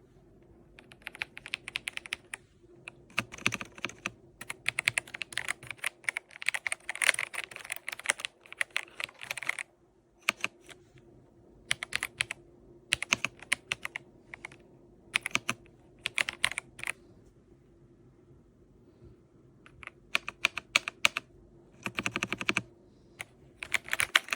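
Typing on an Epomaker Ajazz AK820 Pro gasket-mounted mechanical keyboard with Ajazz Gift switches. Rapid keystroke clicks come in runs: one long run first, then shorter bursts separated by pauses.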